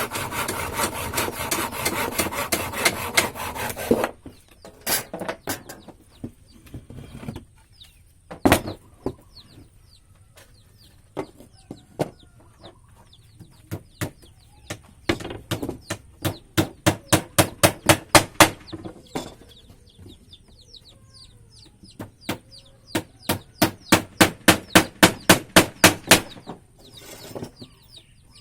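A saw cutting wood for the first few seconds, then a hammer striking wood: single knocks, then two quick runs of a dozen or so blows at about four to five a second, growing louder, as nails are driven in.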